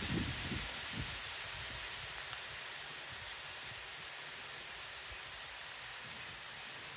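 Steady, even hiss of quiet outdoor ambience with no distinct events.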